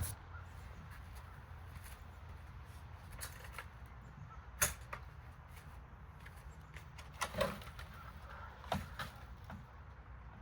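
A few scattered knocks and clicks, the clearest about halfway through and two more a few seconds later, over a faint low rumble.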